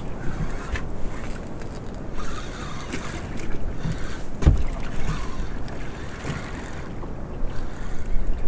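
Wind and sea noise around a small open boat on the water, with a low knock about four and a half seconds in.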